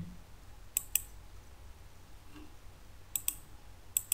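Computer mouse button clicks: three pairs of quick clicks, about a second in, about three seconds in and again near the end.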